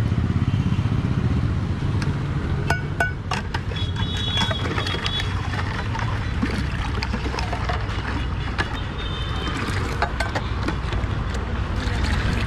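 Steady low rumble of passing street traffic, with scattered sharp clinks of a metal ladle against a steel pot of milk and ice.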